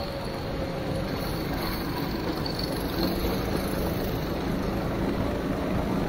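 Go-kart engine running at a steady pitch, heard from the kart itself, under a steady rushing noise of wind and spray off the wet track.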